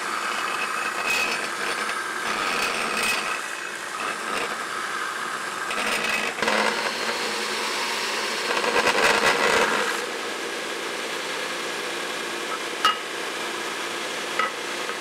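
Belt sander grinding a forged steel spring hanger, the abrasive belt rasping against the steel. It swells and eases as the piece is pressed on and shifted, then settles to a steadier, quieter level after about ten seconds, with two sharp clicks near the end.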